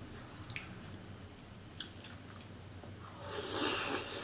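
Close-miked eating at a mukbang seafood boil: quiet chewing with a couple of small clicks, then a louder noisy sound of about a second near the end.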